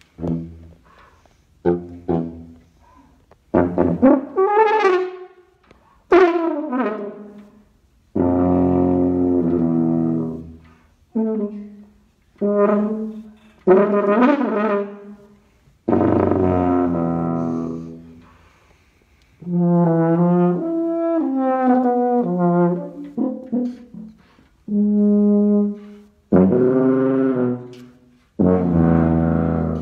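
Solo Miraphone tuba improvising: a string of short low stabs, several held notes of a second or two, and swooping glides up and down in pitch about four to seven seconds in and again around fourteen and twenty seconds.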